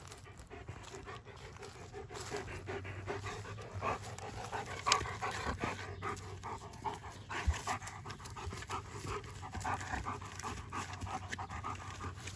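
German Shepherd panting in a quick, steady rhythm, louder from about two seconds in, with a single sharp click about five seconds in.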